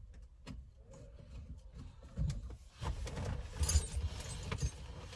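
Scattered light clicks and low knocks of steering-wheel parts and tools being handled, with a brief metallic rattle about three and a half seconds in.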